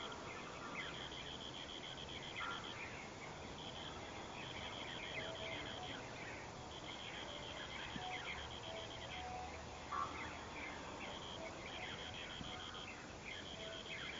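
Birds chirping outdoors: many short, quick chirps, over a high, rapid pulsing trill that repeats in runs of one to two seconds with short breaks.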